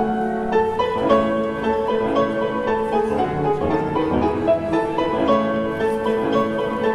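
Piano music in a classical style, a continuous run of notes.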